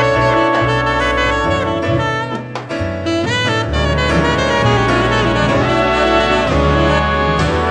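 Small jazz band playing: a saxophone carries the melody over a drum kit and bass, with a short drop in level about two and a half seconds in.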